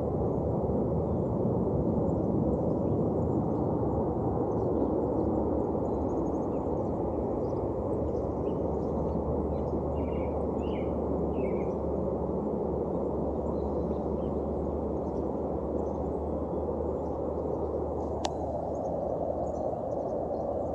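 Steady low roar from the sky, like a fleet of jets overhead, that does not seem to move away; its source is unidentified.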